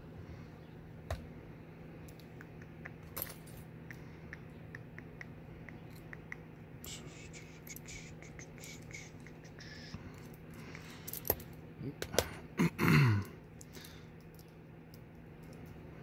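Small metallic clicks and rattles of a picked-open lock and its picks being handled. Toward the end there is a louder cluster of clicks and a brief sound that drops in pitch. A steady low hum sits underneath.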